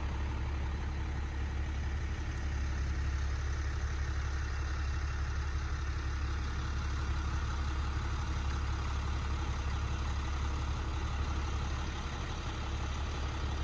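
An engine idling: a steady, even low hum with a faint hiss above it.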